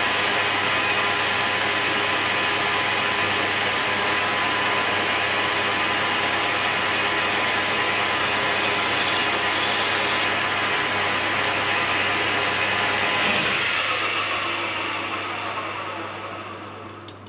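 Lathe running with a light facing cut being skimmed off the female side of a pool cue's joint, a steady machine noise with a hum. Near the end it winds down and goes quiet.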